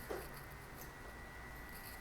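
Faint handling sounds of a small speaker being taken apart: one short tap or scrape of a tool or fingers on its plastic casing just after the start, then light scratching over a steady faint hiss and a thin high tone.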